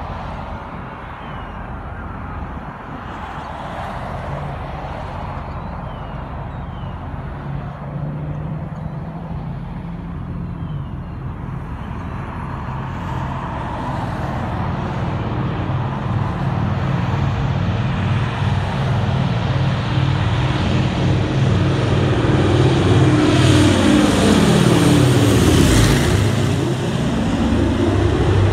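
B-17 Flying Fortress's four Wright R-1820 Cyclone radial engines droning on a landing approach, building from a distant hum to loud as the bomber comes in low. The pitch drops as it passes overhead near the end.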